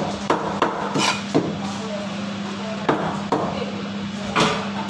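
Heavy cleaver striking fish on a cutting block: about seven sharp, unevenly spaced chops, over a steady low hum.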